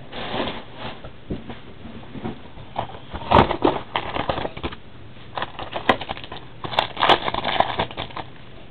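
Trading-card box packaging being torn open and handled: irregular crinkling and crackling of wrapper and cardboard, with a few sharp clicks, loudest a little over three seconds in and again near the end.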